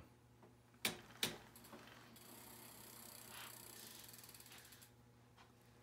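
SRAM bar-end shifter clicking twice, about half a second apart, as it is shifted down through its index stops to slacken the gear cable.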